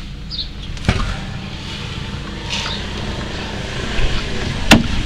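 1965 Chevrolet Impala's engine idling with a steady low rumble, heard from inside the cabin. Two sharp knocks cut across it, one about a second in and a louder one near the end.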